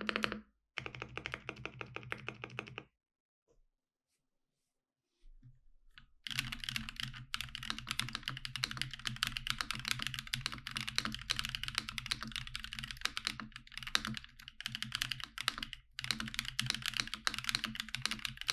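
Typing on a NuPhy Gem80 mechanical keyboard as a sound test, a rapid run of key clacks. A short burst comes near the start, then a few seconds' pause, then a long stretch of fast typing with brief breaks.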